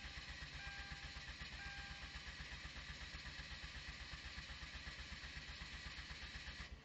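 Hyundai Genesis Coupe 2.0T's starter cranking the engine in a fast, even rhythm without the engine catching, then stopping abruptly near the end: crank with no ignition, the no-start fault. An electronic beep sounds a few times in the first two seconds.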